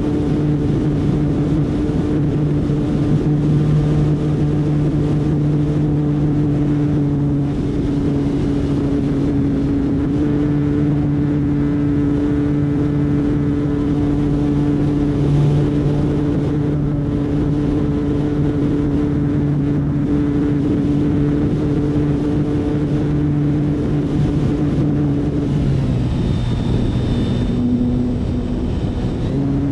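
Propeller and motor of an F3A Explorer radio-controlled aerobatic model airplane in flight, heard from a camera on its nose: a steady drone with wind rushing over the microphone. Near the end the pitch drops for a couple of seconds and a thin high whine comes in, then the drone returns to its earlier pitch.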